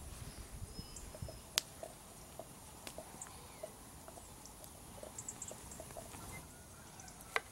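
Small wood campfire crackling, with scattered sharp pops among many small ticks. Brief high bird chirps come through faintly now and then.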